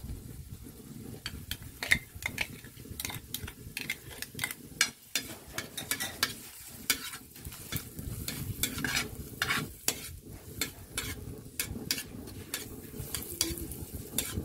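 A metal ladle scraping and knocking against a metal wok, several strokes a second, as chopped onion and garlic are stirred, with a light sizzle of the sauté underneath.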